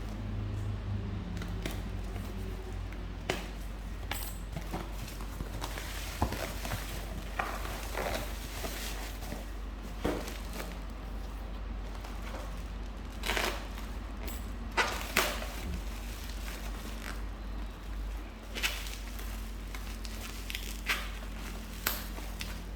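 Hands handling a phone and its packaging: scattered clicks, taps and crinkling rustles, over a steady low hum.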